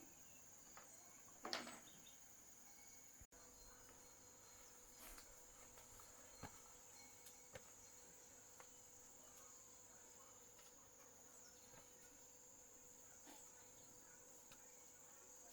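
Faint, steady high-pitched insect chirring, with a few soft clicks and knocks.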